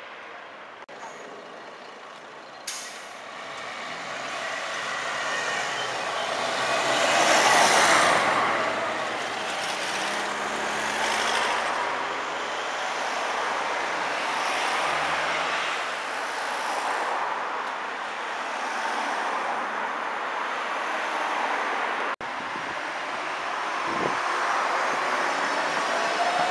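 Trams running with street traffic around them: a steady rush of wheel and road noise that swells to its loudest about eight seconds in, as a vehicle goes by close. The sound changes abruptly twice, and a faint rising whine comes in near the end.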